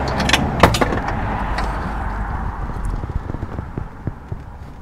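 A few sharp metal clinks in the first second as the replacement horn and its mounting bolt are handled in the engine bay, over a rushing background noise that fades out after about three seconds.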